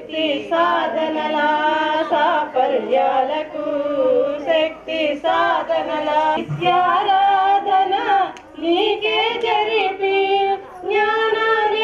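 A woman's voice singing a melodic song: long, wavering held notes in phrases, with short breaks between them.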